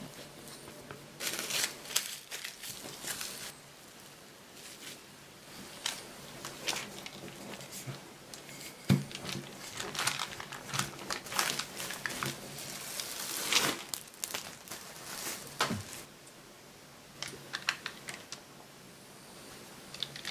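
Plastic wrap crinkling and rustling in irregular bursts as cookie dough is rolled out beneath it with a rolling pin, with scattered sharp clicks and taps.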